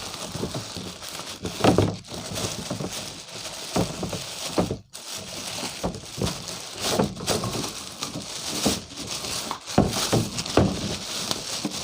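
Toy packaging being opened by hand: irregular rustling and crinkling with small knocks of handling.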